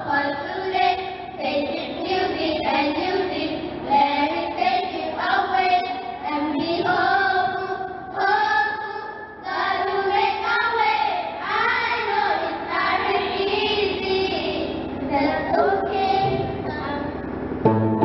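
A choir of young girls singing a song together. Near the end a steady instrumental backing comes in.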